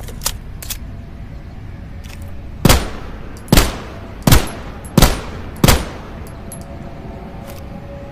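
P38 pistol firing five shots in a steady series, about 0.7 s apart, each a sharp crack with a short tail. A few faint clicks come before the shots.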